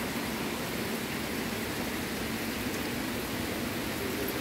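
Heavy rain falling steadily on thatched roofs and a wet, puddled path: an even, unbroken hiss.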